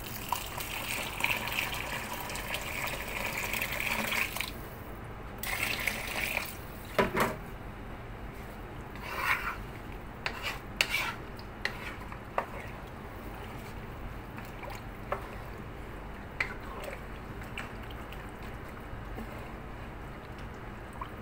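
Water poured into a pot of rice and chicken over the first few seconds, then a wooden spatula stirring through the rice and water, with a few sharp knocks against the pot.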